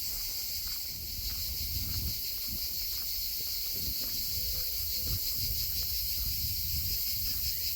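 Steady chorus of cicadas, a dense high buzzing. Underneath are irregular low thumps and rumble.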